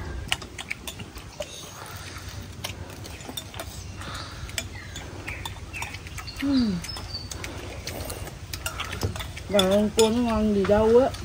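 Metal spoons clinking and scraping against ceramic soup bowls, light scattered clicks. A short falling voice-like tone comes about two-thirds of the way through, and near the end a louder wavering, drawn-out vocal sound lasts about a second and a half.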